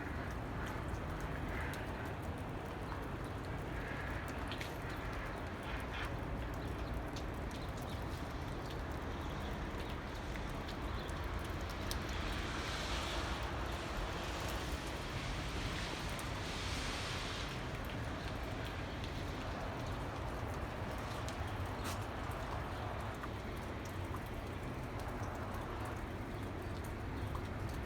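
Steady outdoor noise during a snowfall: a low rumble with scattered faint ticks, and two stretches of louder hiss about halfway through.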